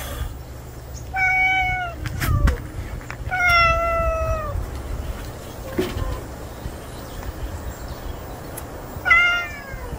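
Tortoiseshell cat meowing three times: a drawn-out meow, a longer slightly falling one, and a short falling meow near the end. There is a low thump about two seconds in.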